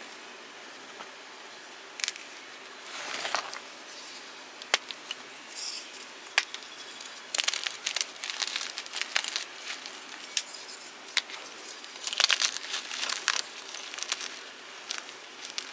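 Fresh blocks of gym chalk being crushed: dry crunching and crumbling with sharp cracks, coming in irregular bursts, the longest about three seconds in, around eight seconds in and at twelve to thirteen seconds.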